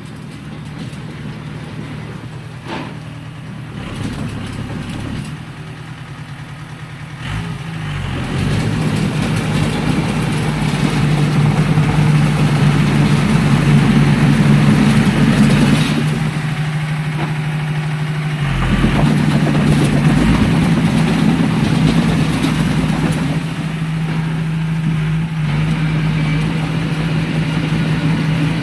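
Heavy diesel engine of a bulldozer running steadily under load, growing louder about a quarter of the way in and easing off briefly past the middle before picking up again.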